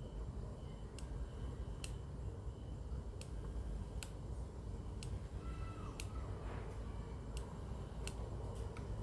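Sharp, irregular clicks, about one a second, over a steady low hum.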